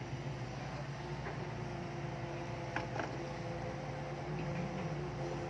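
Heavy construction machine's engine running steadily, a low drone with a few held engine tones, with two short knocks a little past halfway through.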